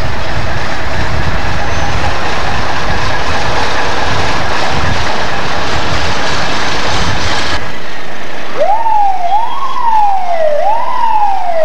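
Fire engine passing slowly close by: a steady engine rumble with wind noise on the microphone. After a sudden cut about two-thirds of the way through, an emergency vehicle siren wails in three quick rising-and-falling sweeps.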